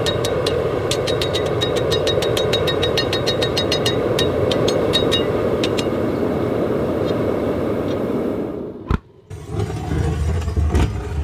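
A steady roar, like a forge burner, with quick light ringing metal taps over it, as the hot sword blade is worked on the anvil. The taps stop about five seconds in. The roar cuts off near the end, followed by a sharp click and a few dull knocks.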